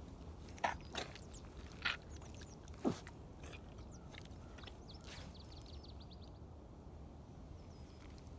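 Black Baffin rubber boots squelching and sucking in wet, sticky marsh mud as the feet shift, four short squelches within the first three seconds, the last one dropping in pitch, then only quiet wet shuffling.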